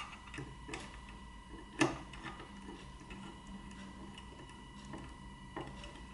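Small screwdriver turning a screw into the slide-change mechanism of a slide projector: scattered light clicks and ticks, with one sharper click about two seconds in, over a faint steady high hum.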